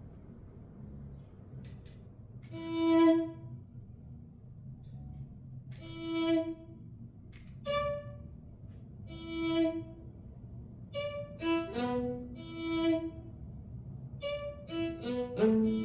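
Violin playing slow, held notes a few seconds apart, then a run of quicker notes near the end, over a faint low hum.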